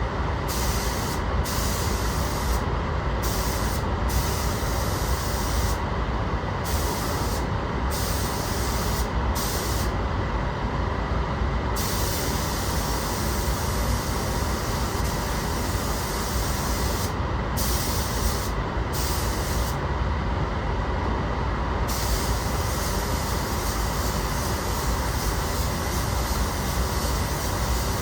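Paint spray gun spraying sealer, a hiss that starts and stops many times as the trigger is pulled and released, with longer pauses about ten and twenty seconds in, over a steady loud rush of air.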